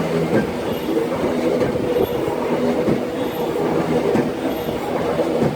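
Industrial press machine running: a steady mechanical hum with repeated knocks and clanks.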